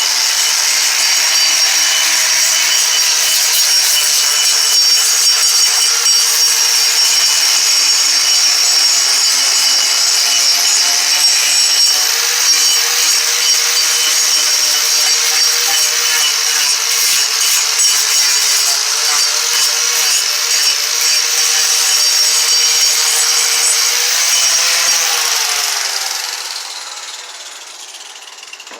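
Electric grinder running steadily against wood, with a high whine, as it grinds black paint off a pine carving. Near the end the motor is released and winds down, its pitch falling as it fades.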